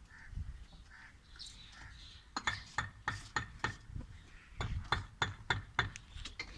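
Two quick runs of sharp metallic clinks, about three to four a second, each with a short ring.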